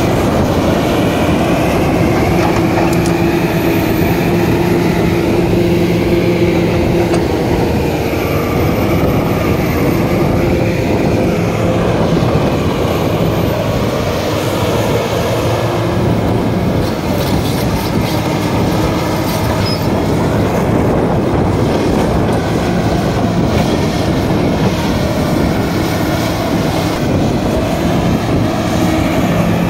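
Komatsu PC300LC crawler excavator travelling on its steel tracks: the diesel engine runs steadily under the clanking of the track links, with a few brief high squeals from the running gear.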